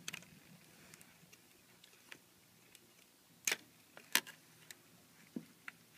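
Light, scattered plastic clicks and taps as wire-harness plugs are worked out of a TV's main circuit board, the two sharpest about three and a half and four seconds in.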